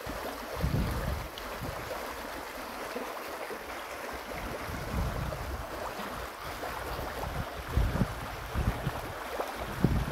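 Spring-fed stream flowing and bubbling steadily over a shallow bed, with gusts of wind buffeting the microphone now and then.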